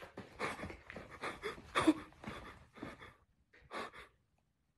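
A man breathing hard in quick, irregular gasps and pants, a few with a little voice in them.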